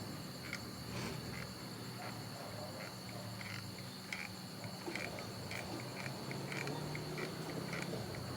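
Crickets trilling steadily, with short chirps coming every half second or so, over a low steady hum.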